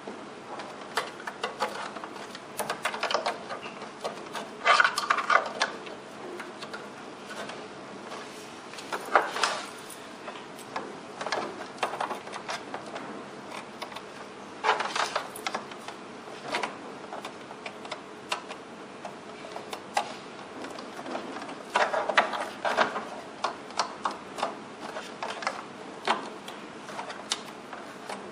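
Cable plugs being handled and pushed into the jacks on a TV's back panel: irregular plastic clicks, taps and scraping rubs, with several brief louder clusters.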